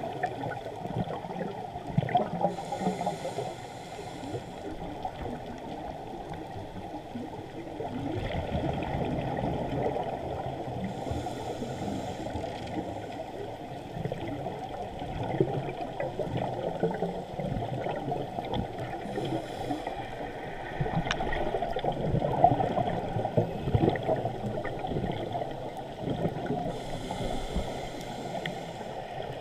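Muffled underwater sound picked up through a waterproof camera housing, with the hiss and bubbling of a scuba diver's regulator breaths returning about every eight seconds.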